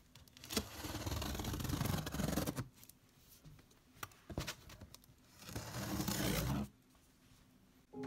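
Scissors blade dragged along the packing-tape seam of a cardboard box, slitting the tape open in two long scraping cuts, with a few sharp clicks between them.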